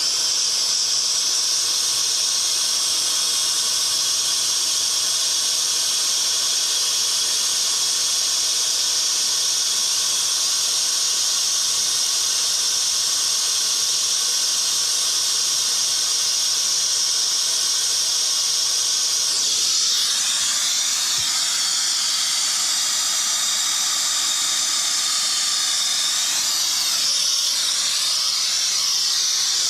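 Brazing torch flame hissing steadily on a refrigerant line joint, the hiss shifting in tone about twenty seconds in.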